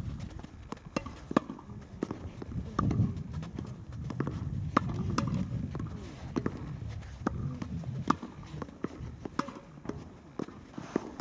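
Tennis rally: racket strings striking a tennis ball and the ball bouncing on the court, a string of sharp pops every second or so, with a low rumble underneath.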